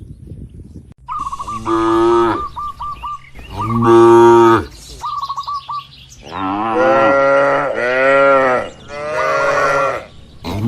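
Cattle mooing, about five long moos one after another, some rising and falling in pitch. A quick chirping trill sounds over the first moos.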